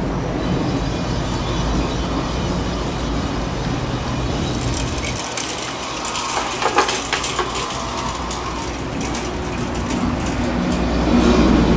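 Steady low mechanical rumble with a faint hum, typical of an urban riverside under a bridge. About halfway through, a close passing bicycle adds a quick run of clicking and rattling.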